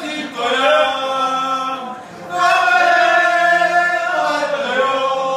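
A group of people singing a national anthem together, loud and in long held notes, with a short break between phrases about two seconds in.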